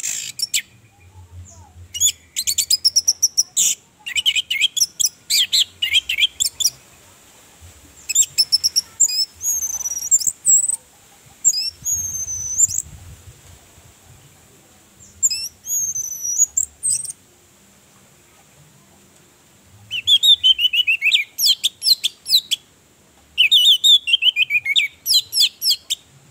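Orange-headed thrush singing: about seven quick phrases of varied whistles, rapid chirps and sweeping high notes, each a second or more long, with short pauses between them. The last two phrases run down in pitch in fast steps.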